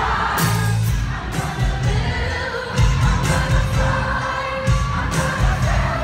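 Live pop music with a woman singing into a microphone over a loud, bass-heavy backing track and drum beat, recorded on a phone from within the crowd.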